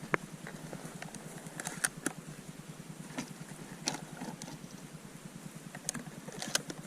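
Faint steady low rumbling noise, with a few short soft clicks scattered through it.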